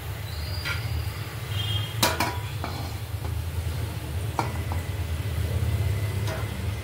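Stainless steel wire skimmer clinking against a steel pan and tray about five times, some clinks with a brief metallic ring, as fried onions are lifted out of the oil and tipped out. A steady low hum runs underneath.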